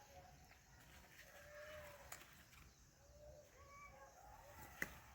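Faint, quiet animal calls: several short, slightly arching cries. A sharp click about two seconds in and a louder one near the end.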